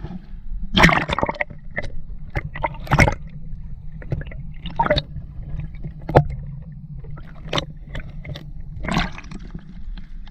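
Seawater splashing and gurgling around a camera dipped partly under the surface beside a small boat, with irregular sudden splashes and knocks over a steady low rumble.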